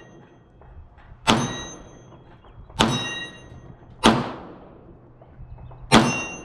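Four semi-automatic pistol shots fired one at a time, about one and a half to two seconds apart. Each is a sharp crack followed by a short ring and echo.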